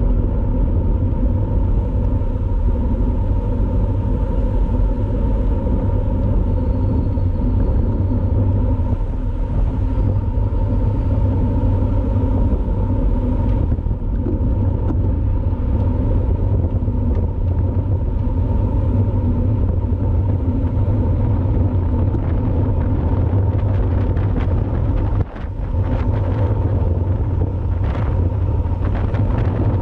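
Steady low rumble of wind buffeting the microphone, mixed with road and tyre noise from riding a road bike at racing speed; it dips briefly about 25 seconds in.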